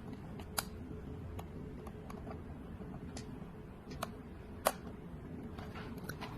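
A handful of sharp light clicks, about five spread out and the loudest a little past the middle, over a low steady hum: small plastic and wire parts of the doorbell setup being handled during wiring.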